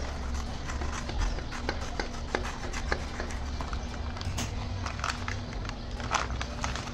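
Scissors snipping along the edge of a paper courier envelope, the paper crinkling and rustling as it is handled and pulled open. The sound is an irregular string of sharp clicks and crackles over a steady low hum.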